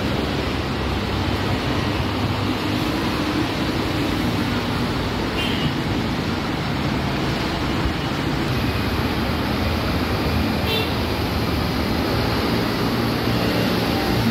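Steady traffic noise from cars, motorcycles and buses running along a multi-lane highway, with a continuous engine and tyre hum. Twice, a faint brief high-pitched sound stands out above it.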